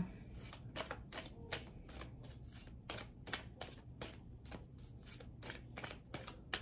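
Tarot cards being shuffled by hand: a quick, irregular run of soft card flicks and slaps, with a faint steady hum beneath.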